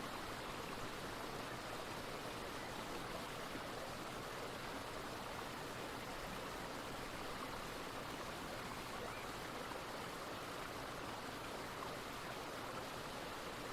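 Running water of a brook: a steady, even rush that does not change.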